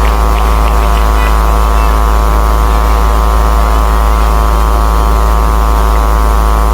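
Loud, steady electrical mains hum with a buzzy stack of overtones, holding one unchanging pitch.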